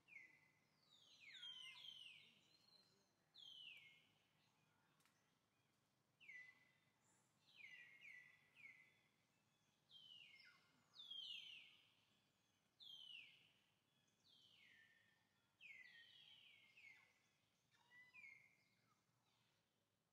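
Faint bird calls: short, high notes that slide quickly downward, repeated in overlapping clusters every second or two.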